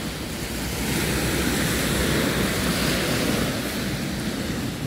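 Sea surf washing onto a sandy beach, a steady hiss that swells about a second in and eases near the end, with wind rumbling on the microphone.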